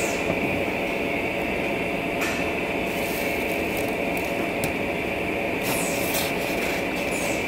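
Steady mechanical drone with a high whine running under everything. A few short crackles come over it, a cluster of them about six seconds in, as the aluminium-foil wrapper of a burrito is handled.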